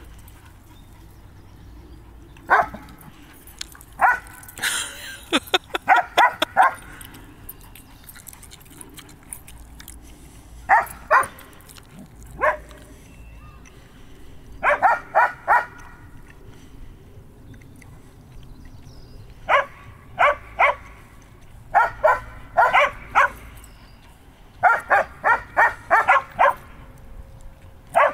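A dog barking in short bursts through the whole stretch, often several quick barks in a row with pauses of a few seconds between clusters.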